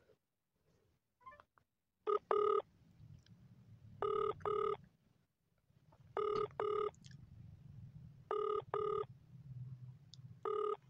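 Telephone ringback tone heard through a mobile phone's loudspeaker: double rings, two short tones per ring, about every two seconds, on an outgoing call that has not yet been answered.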